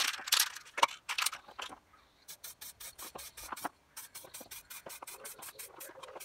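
Aerosol spray-paint can being shaken, its mixing ball rattling in quick, regular clicks about six or seven a second. A couple of short hisses of spray come in the first second or two.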